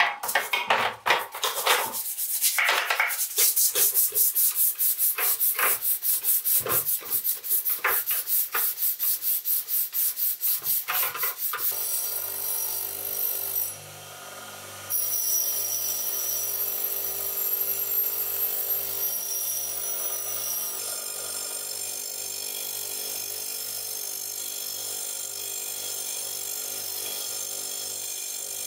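Rhythmic abrasive rubbing strokes, about three a second, for the first eleven seconds or so. Then a small electric motor starts and runs steadily, with a brief dip in level a couple of seconds after it starts.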